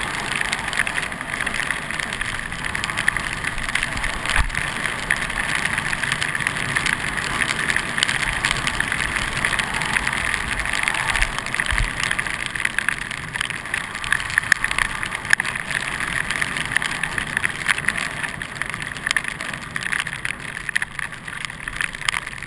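Steady hiss and scrape of packed snow under a rider sliding down a groomed ski run.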